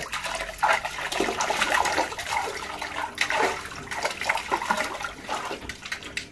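A pug splashing in a shallow paddling pool, pawing at a floating ball: irregular splashes and sloshing water, some sharper slaps among them.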